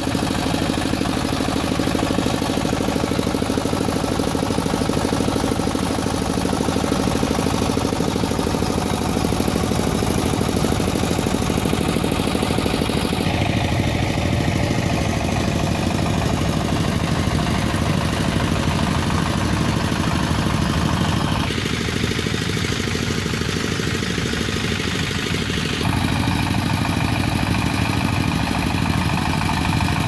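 Diesel engine driving a paddy thresher, running steadily at a constant speed. The sound changes character abruptly three times.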